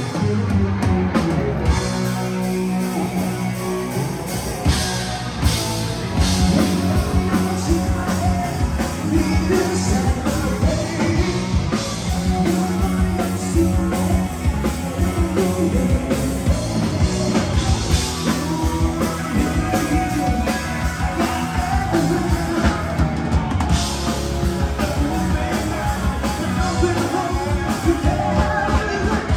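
Rock band playing live with a singer, drum kit and guitar.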